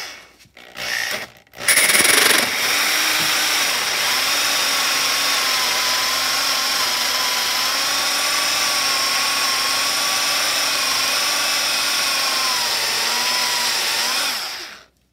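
Electric drill spinning a 1 3/4-inch bi-metal hole saw into a wooden 2x6, cutting halfway through the board. Two short bursts of the trigger come first, then the saw cuts steadily for about twelve seconds with the motor's whine wavering under the load, and it stops sharply near the end.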